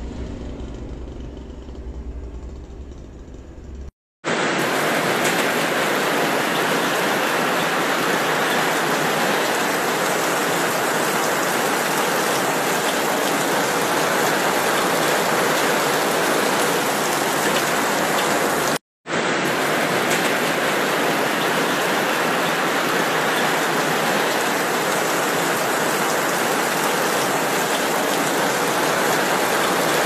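Heavy tropical downpour, a loud steady hiss of rain pouring onto the road and pavement. Before it starts, about four seconds in after a short break, there is a low rumble of wind buffeting the microphone.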